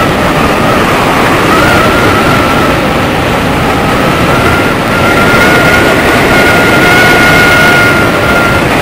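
Loud rush of wind on the microphone during a fast sandboard descent down a sand dune, with a thin steady whistle that creeps slightly higher in pitch.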